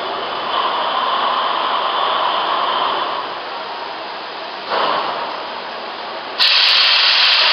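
Gemco 30 cubic-foot slant-cone blender running, its stainless-steel vessel turning, with a steady hiss. The hiss swells briefly about five seconds in and comes in much louder near the end.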